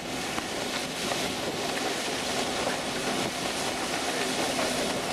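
Steady drone of a boat's engine with a faint constant hum, under a rush of wind and water.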